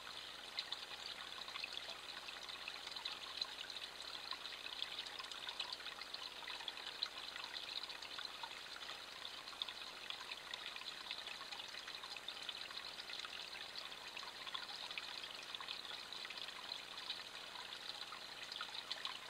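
Shallow stream trickling over stones: a steady bubbling with many small splashes.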